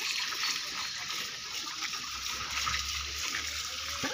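Water from a garden hose running and splashing as a German Shepherd is washed down, a steady rush.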